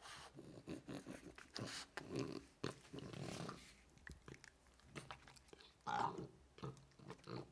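French bulldog sniffing and mouthing a cherry tomato held in someone's fingers: a string of wet mouth smacks, small bites and breathy puffs, with one brief, louder, higher sound about six seconds in.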